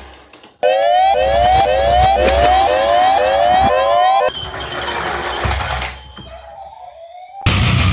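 Toy ambulance mini car's electronic siren: a quick rising whoop repeated about twice a second, which cuts off abruptly about four seconds in. Loud music starts near the end.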